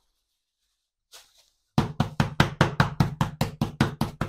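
Wooden meat mallet pounding a slice of pork neck through a plastic bag on a plastic cutting board, flattening it into a thin schnitzel. Rapid, even blows come about six a second, starting a couple of seconds in.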